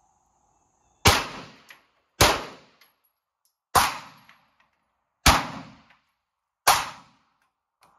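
Five 9mm pistol shots, fired singly about one to one and a half seconds apart, each with a short ringing echo after it.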